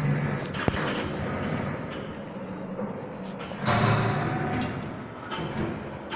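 3D CNC wire bending machine at work, its feed and bending motions making a noisy mechanical whir. There is a sharp click a little under a second in and a louder surge of movement about four seconds in.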